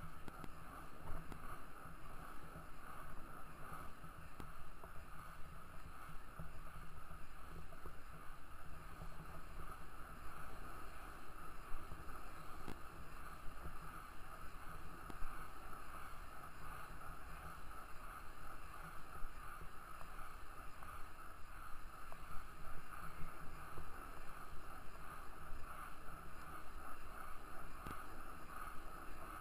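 Small wheels of freeline skates rolling steadily over asphalt: a continuous rumbling hiss with scattered small ticks from bumps and grit in the path surface.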